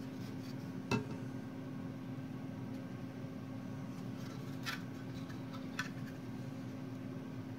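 A few light plastic clicks and knocks from a 3D-printed PLA bull figurine being handled and turned in the hand, the sharpest about a second in, over a steady low hum.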